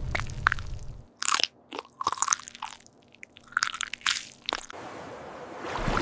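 Crunchy biting and chewing: several crisp crunches come in quick clusters between about one and five seconds in. A low rumble fades out in the first second, and a rushing noise swells near the end.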